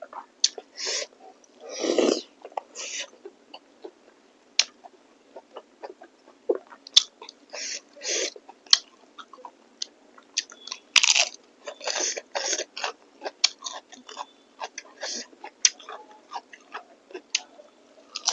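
A person chewing a mouthful of beef innards and meat curry, heard close up as a run of short, irregular mouth sounds.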